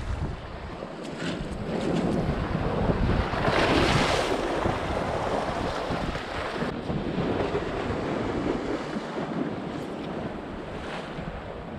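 Sea waves washing onto the shore, one wave surging loudest about three to four seconds in, with wind buffeting the microphone.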